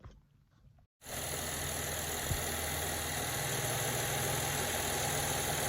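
GMC Acadia engine idling steadily, its power steering just bled after a pressure hose replacement. It cuts in abruptly about a second in, and there is one faint thump shortly after.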